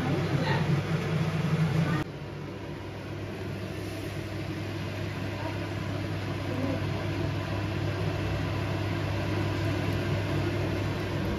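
Steady low hum from a lit gas stove with beaten egg being poured into a hot, oiled pan, the egg sizzling faintly. The hum drops abruptly to a lower, quieter pitch about two seconds in.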